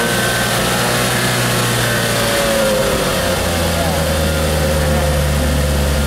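A Lotus's four-cylinder engine, held at raised revs after a blip, then settling back to a steady idle about two to three seconds in.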